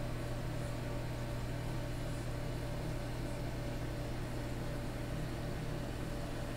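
Reef aquarium equipment running: a steady low electrical hum with an even hiss, unchanging throughout.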